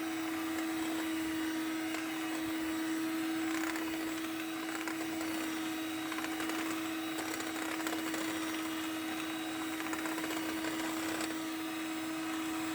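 Electric mixer running steadily with a constant hum, beating eggs with sugar, vanilla and salt for a cake batter.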